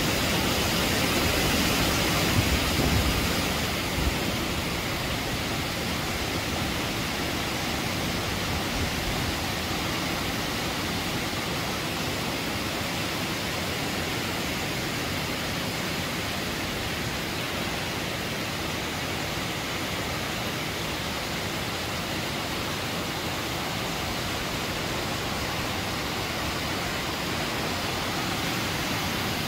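Tall waterfall pouring down a rock face: a steady, unbroken rush of falling water. It is a little louder, with some low rumbling, for the first few seconds, then settles.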